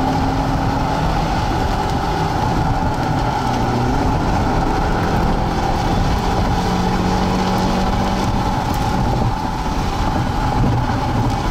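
Car driving, with a steady mix of engine, road and wind noise heard from inside the moving vehicle.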